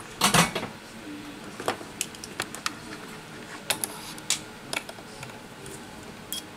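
Small tools being handled on a repair bench: a short clatter about a quarter of a second in, then scattered single sharp clicks.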